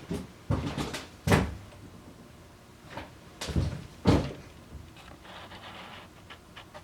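A series of sharp knocks and clunks in two bursts, the loudest about a second in and about four seconds in, then a few light clicks near the end: metal workshop parts being handled and set down.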